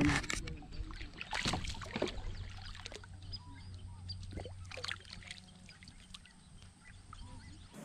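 Water splashing and a few light knocks at the side of a kayak as a hand lets a caught bass back into the water.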